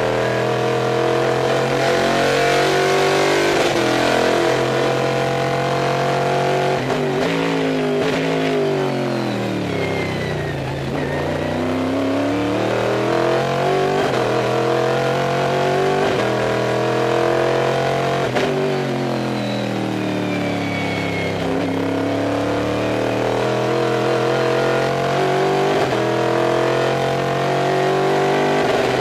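Stock Car V8 racing engine heard from inside the cockpit under hard driving, its pitch climbing for several seconds under acceleration, then dropping away under braking about eight seconds in and again around eighteen seconds, before climbing again.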